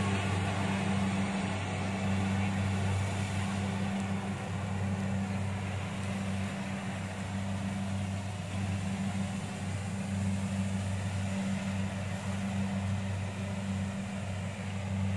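Kubota DC-70 rice combine harvester running while it cuts, a steady low engine drone with a hum of machinery over it. It fades slightly as the machine moves away.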